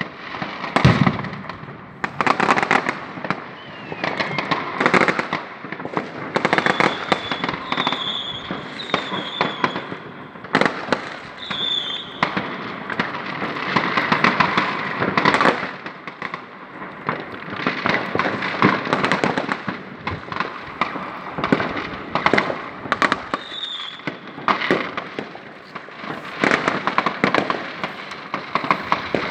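New Year's Eve fireworks: a dense, unbroken barrage of firecracker bangs and crackling, with a few short high whistles now and then.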